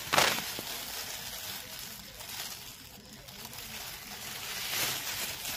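Thin clear plastic produce bag crinkling and rustling as a hand handles the vegetables inside it, in a few crackly bursts, the loudest just after the start.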